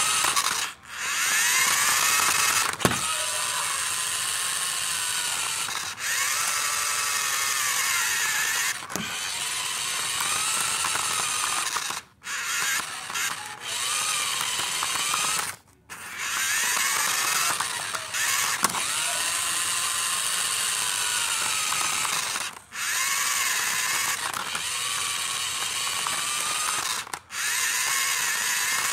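Electric motor and gearbox of a toy remote control car whining as it drives, the pitch rising and falling as it speeds up and slows, with several brief stops.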